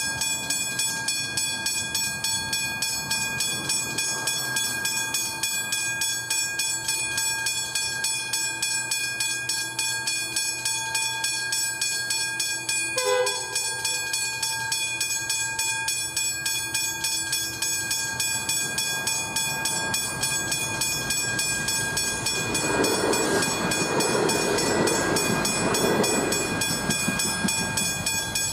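Level crossing warning bells (Westinghouse hybrid bells) ringing rapidly and steadily while the crossing is activated. Near the end a train approaches and grows louder.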